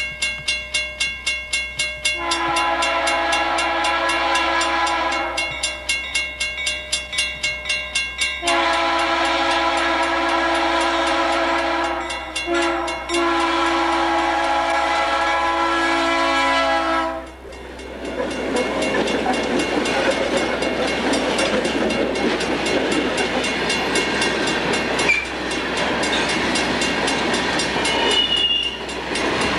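A bell ringing steadily, then an EMD GP9 diesel locomotive's air horn sounding for a grade crossing: a long blast, a pause with the bell, another long blast, a short one and a final long one. The locomotive and a string of gravel hopper cars then roll past with steady wheel rumble and clatter, a couple of clanks and a brief high flange squeal near the end.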